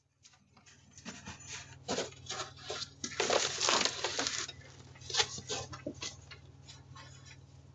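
Irregular crunching and rustling noises, densest and loudest around the middle, over a steady low electrical hum.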